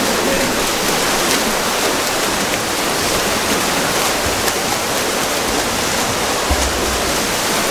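Water polo players swimming and splashing in a pool, a steady wash of churned water with a few faint clicks.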